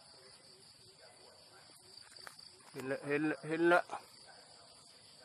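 Steady, high-pitched chorus of insects in the trees, an unbroken shrill drone in two high bands.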